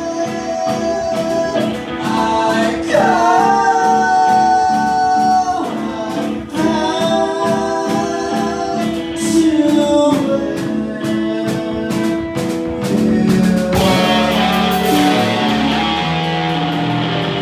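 Live rock band playing: a man sings long held notes that swoop up into pitch, over electric guitar, bass and a steady drum beat. About fourteen seconds in the singing drops out and crashing cymbals take over under the guitar.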